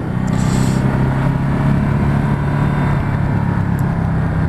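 Ducati Multistrada 1260 S's V-twin engine running on board at a steady pitch, the bike cruising at about 50–60 km/h.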